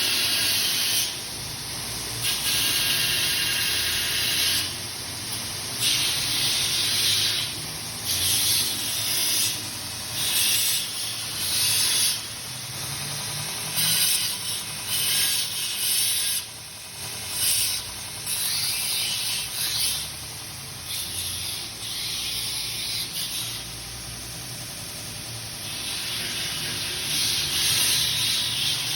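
Belt grinder running, with a steady motor hum under a gritty hiss as metal is pressed to the abrasive belt. The hiss swells and fades in repeated passes of a second or two, with a longer, heavier pass near the end.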